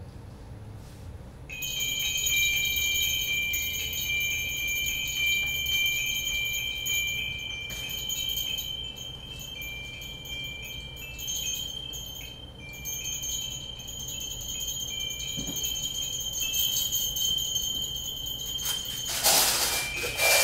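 Metal chimes ringing: several high, overlapping tones that come in about a second and a half in and sustain, with a brief louder rush of noise near the end.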